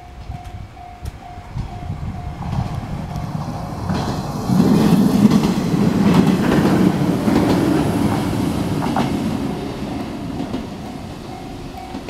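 KuMoHa 105 electric railcar passing close by, loudest from about four and a half seconds in and fading after. A level-crossing warning bell rings at about two strikes a second, covered by the train as it passes and heard again near the end.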